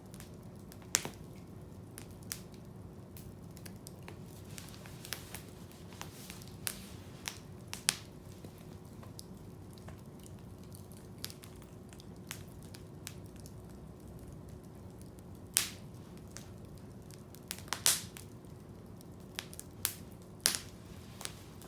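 Wood campfire crackling, with irregular sharp pops and snaps, a few of them much louder than the rest.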